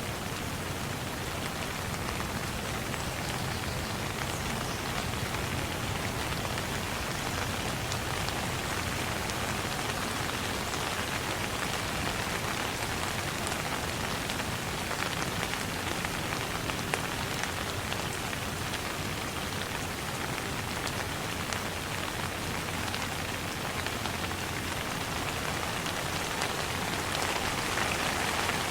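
Steady rain falling and pattering on a surface, a dense even hiss with scattered fine drop ticks.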